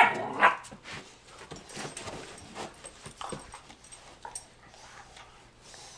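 German shorthaired pointers play-fighting: two loud, sharp barks right at the start, then quieter whines and scuffling as the dogs tussle on the bed.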